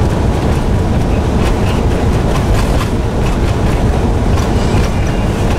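Semi-truck cab on the move: steady engine and road noise, with light rattles and clicks scattered throughout.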